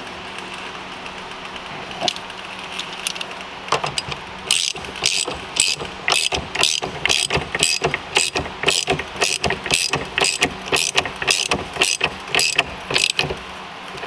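Hand ratchet and socket tightening the nut that holds the short hub on the steering column shaft, the pawl clicking in a steady rhythm about twice a second from about four seconds in. The nut clamps the hub tight and completes the horn's ground to the column.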